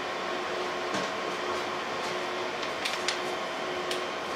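Steady room hum and hiss, with a few faint light clicks of handling.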